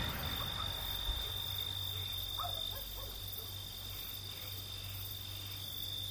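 Night ambience: a steady, continuous high cricket trill over a low hum, with a couple of faint short chirps about halfway through.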